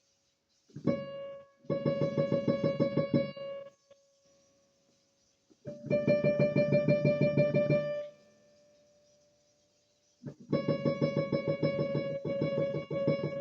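Casio PX-350 digital piano with one note struck over and over in quick runs, several strikes a second, with short pauses between the runs. The key is being tested after a repair for knocking and rattling, and it now sounds normal.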